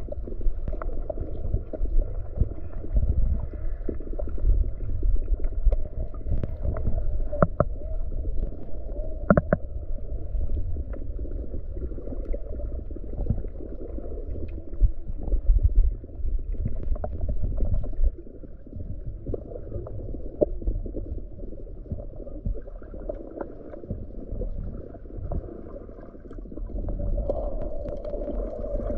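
Muffled low rumble of water surging around rocks, heard from underwater, with scattered light clicks and ticks; it eases off a little partway through.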